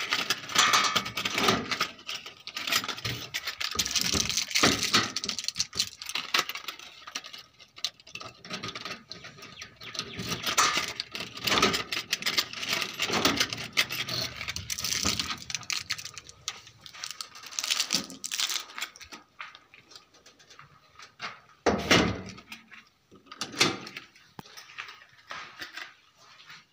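A steel door's lock and lever handle being worked with a key: metallic clicks and rattles, mixed with the crinkling of the plastic protective film wrapped over the door. Several louder single knocks come in the second half.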